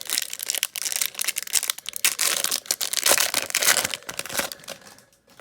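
Foil wrapper of a Pokémon TCG Evolving Skies booster pack being torn open and crinkled: a dense crackle that dies away about four and a half seconds in.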